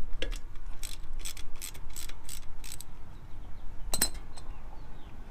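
Hand ratchet wrench clicking in a quick run of about nine clicks, as hand tools are readied to loosen the drain plugs and covers for an oil change. About four seconds in comes one sharp metallic clank with a brief ring, a steel tool knocked or set down.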